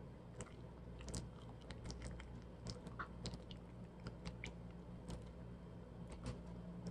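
A person chewing a mouthful of banana, with many small, irregular wet mouth clicks over a low steady hum.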